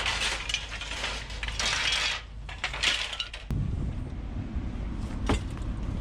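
Curbside scrap and trash being handled: several bursts of rustling and scraping with light clinks. A low steady rumble comes in about halfway through, and a few sharp clicks follow near the end.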